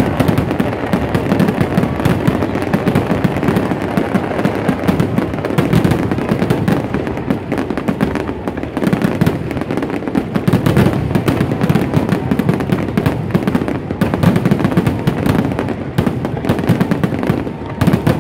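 Fireworks exploding in a rapid, unbroken barrage: many bangs and crackles a second with no pause between them.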